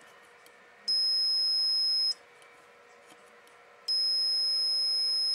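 Multimeter continuity beeper sounding a steady high-pitched tone twice, once for just over a second about a second in and again from about four seconds in, as the probes bridge the power supply's output protection diode: the diode is shorted.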